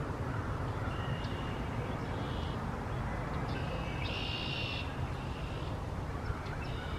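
Male red-winged blackbird singing: a few short high notes, then a little after four seconds a longer buzzy trill, the end of its conk-la-ree song. A steady low rumble runs underneath.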